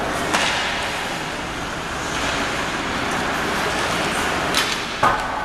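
Ice hockey game heard from the stands: a steady wash of rink noise, with sharp clacks of stick and puck about a third of a second in and twice near the end.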